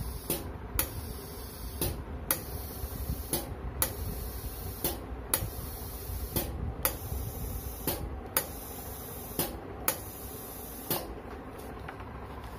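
Flovell F01D12 electro-pneumatic glue dispenser cycling automatically on its interval timer. Its air valve clicks open and shut for each shot, a pair of clicks about half a second apart, repeating about every second and a half, over a steady hiss of air. The clicks stop near the end.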